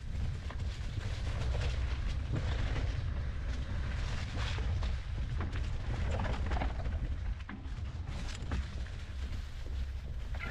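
Mountain bike ridden over rocky, leaf-strewn singletrack: a steady low rumble of wind and vibration on the bar-mounted microphone, with frequent knocks and rattles from the tyres and frame over rocks and roots.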